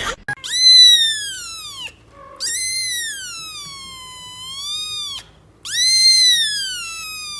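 An animal giving three long, high cries, each rising then falling in pitch, the middle one the longest with a dip and a rise near its end.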